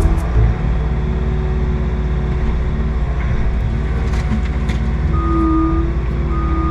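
Bobcat skid steer's engine running steadily, with a thin high tone coming in twice near the end.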